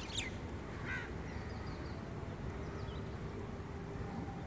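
Crows cawing, with one call just after the start and another about a second in. Fainter small-bird chirps follow, over a steady low rumble.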